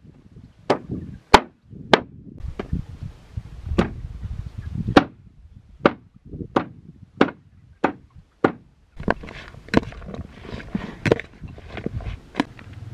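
Repeated chopping strokes, a blade striking down hard about one and a half times a second. In the last few seconds the strokes come quicker and lighter, with rustling between them.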